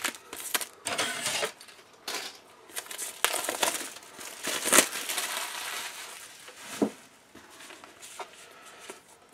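Packaging rustling and crinkling with scattered clicks and taps as the cardboard game board is unwrapped and handled, densest a few seconds in, with a single sharp knock about two-thirds of the way through.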